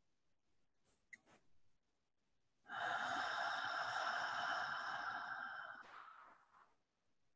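A woman's long, slow breath out, lasting about four seconds from a little under three seconds in and tapering off: the exhale of a guided deep-breathing round. A couple of faint clicks come before it, about a second in.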